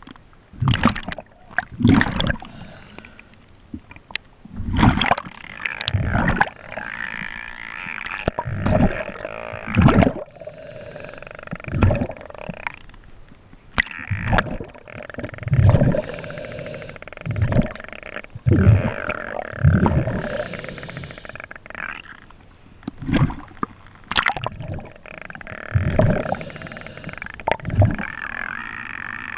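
Underwater sound from an action camera dragged through the sea with a rigged bait fish: water rushing and knocking against the camera housing in irregular surges every one to two seconds, with low thumps. A steady wavering whine runs underneath.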